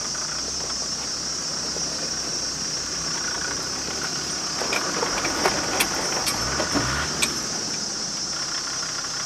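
Land Rover Discovery 2's Td5 five-cylinder turbo-diesel engine working at low revs as the lifted 4x4 crawls up an off-camber rocky climb, its note rising briefly about six seconds in, with a few sharp clicks between about five and seven seconds. A steady, high insect chorus runs over it.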